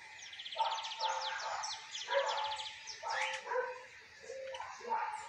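A dog barking repeatedly in short calls, with birds chirping in a fast, high trill behind it.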